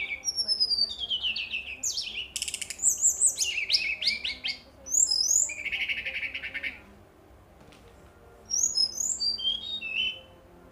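Brown-chested jungle flycatcher singing a varied song of quick falling whistles, rapid trills and a buzzy note. It breaks off for about two seconds, then sings one last short phrase near the end.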